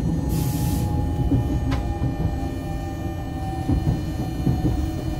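Passenger train running, heard from inside the carriage: a steady low rumble from the wheels and track with a thin steady whine above it. A short hiss comes about half a second in and a sharp click near two seconds.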